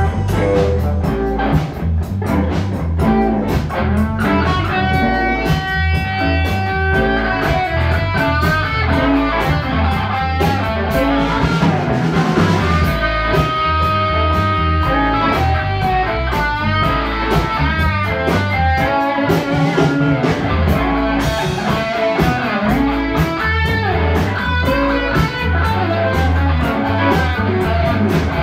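Live blues band playing an instrumental passage with no vocals: an electric guitar lead with bent notes over bass guitar and drums.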